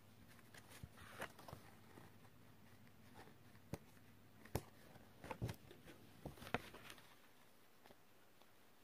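Faint handling of paper and card on a table: soft taps, rustles and clicks as sheets are pressed down, picked up and set back, busiest between about four and seven seconds in.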